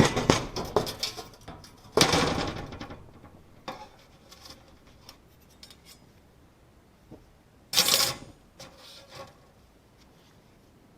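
Metal objects clattering and rattling as they are handled, in a few bursts: two in the first three seconds, scattered knocks after, and another sharp burst about eight seconds in.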